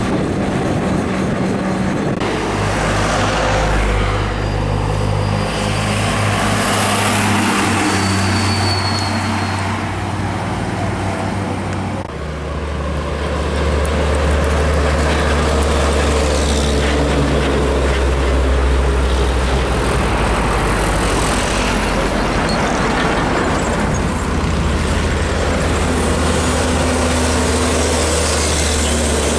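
Heavy diesel trucks driving past on a road: a steady low engine drone with tyre and traffic noise. The engine sound shifts abruptly about two seconds in and again around twelve seconds in, to a different truck's engine.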